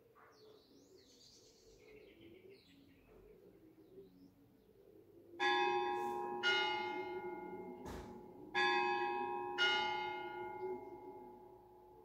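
A bell struck four times in two pairs, the strokes of each pair about a second apart, each stroke ringing on and fading slowly. Faint bird chirps come before the first stroke.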